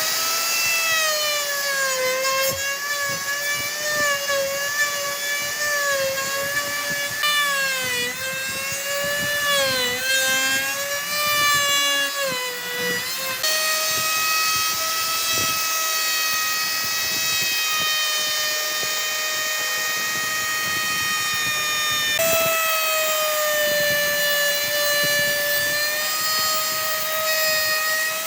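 Electric power tool's motor running with a high whine whose pitch sags and recovers repeatedly in the first half, then holds steadier.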